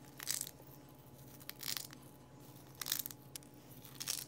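Eggshell crunching and crackling as it is crumbled between the fingers, in four short bursts about a second apart.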